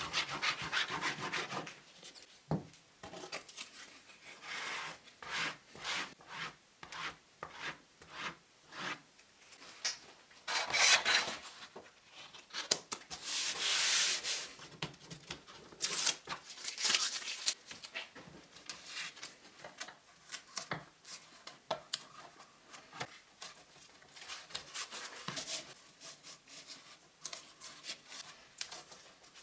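Hands spreading glue over wood veneer and rubbing a sheet of cherry veneer flat onto it: a run of short, dry rubbing strokes, loudest about eleven and fourteen seconds in.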